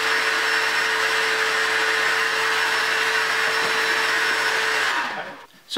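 Circular saw on a guide rail cutting a sheet of plywood: a steady motor whine that is switched off about five seconds in and winds down.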